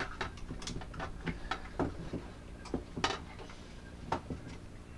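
Irregular small plastic clicks and taps from hands fumbling mains wires into the terminals of a temperature controller's plastic enclosure. The clicks come unevenly, a dozen or so, the sharpest about three and four seconds in.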